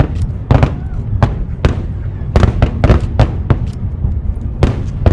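Aerial fireworks shells bursting in rapid, irregular succession: about a dozen sharp bangs over a continuous low rumble, bunching together in the middle and again near the end.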